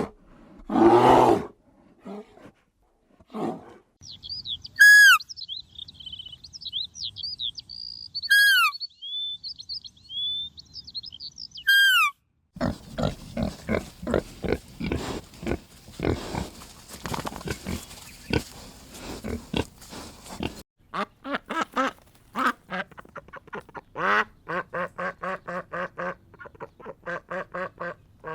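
A run of different animal calls: a loud call at the very start, then high, sweeping bird chirps, then a long stretch of rapid, repeated animal calls.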